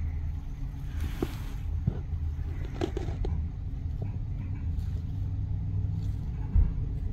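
Ford F-150 engine idling with a steady low rumble, with a few light clicks and a thump near the end.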